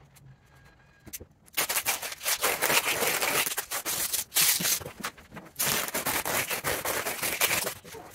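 Plastic stretch wrap being pulled off its roll and wound around a blanket-covered armchair: a loud, crackling, hissing rasp that starts about a second and a half in, with a couple of brief breaks.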